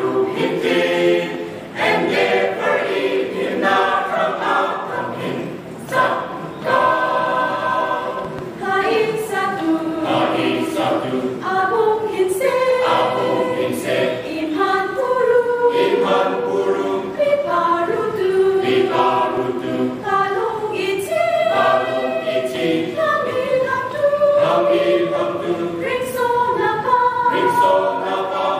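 Mixed choir of women and men singing an Anal Christian hymn a cappella, several voices holding different pitches together.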